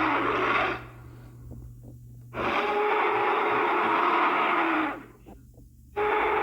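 Spinosaurus roar sound effects: a harsh, growling roar ends just under a second in, a second roar of about two and a half seconds fills the middle, and a third begins near the end.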